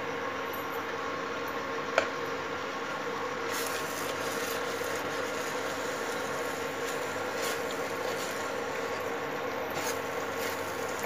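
A silicone spatula stirring and scraping thick pav bhaji around a pan from about three and a half seconds in, over a steady kitchen hum. One sharp click about two seconds in.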